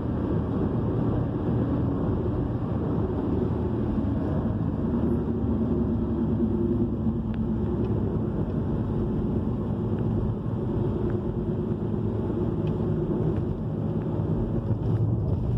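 Steady road and engine noise of a car cruising on a highway, heard from inside the cabin.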